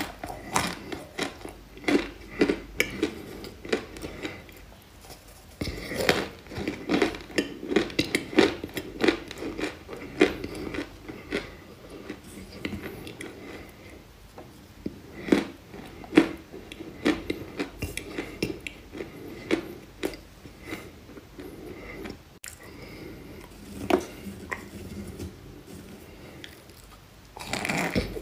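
Close-up chewing and biting of dry white chalky clay chunks: irregular sharp crunches and clicks as pieces are bitten and ground between the teeth, with crumbly rustling of lumps being broken off by hand.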